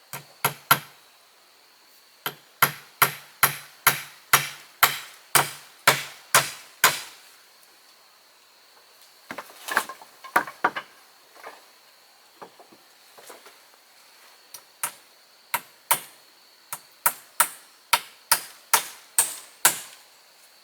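A hand tool striking wood in runs of sharp blows, about two a second, each with a dull thud beneath it; between the runs come lighter, irregular knocks.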